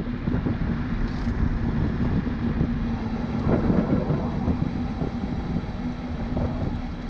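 Dualtron Thunder electric scooter riding along asphalt: wind buffeting the microphone and tyre rumble, with a steady low hum.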